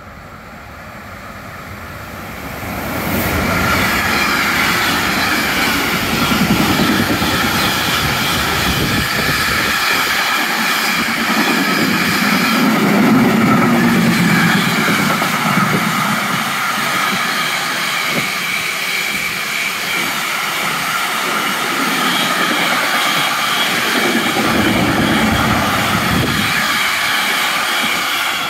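Container freight train passing at speed on the adjacent track: the wheel-on-rail noise builds over the first few seconds as the train arrives, then a loud, steady rush and clatter of the wagons with high ringing tones from the wheels.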